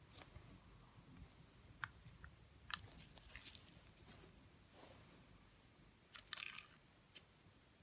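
Faint handling noise of packaging being unpacked: a few sharp clicks and short crinkly rustles, busiest about three seconds in and again near the end.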